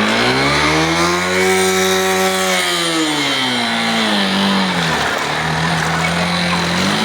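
An engine revving: its pitch climbs, holds for about a second, sinks back, runs steady, and starts climbing again near the end, over a constant rushing noise.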